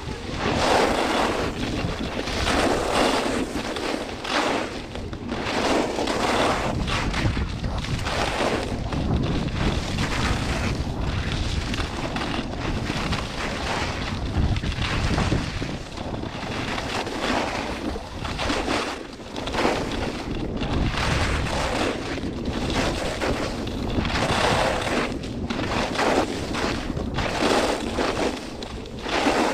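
Skis scraping over a hard, icy groomed piste, surging with each turn every second or two, with wind buffeting the action camera's microphone.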